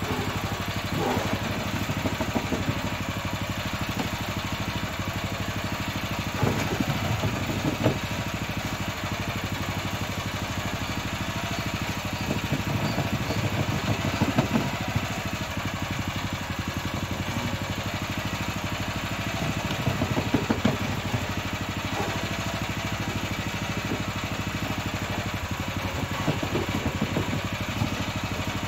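Small stationary engine running steadily, driving a cassava-processing machine as cassava mass for farinha is fed into it. Louder rattling spells come every few seconds.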